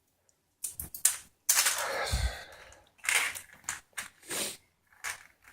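Crinkling and crackling of packaging being handled and opened: a run of sharp clicks and rustles, with one longer tearing crackle about a second and a half in.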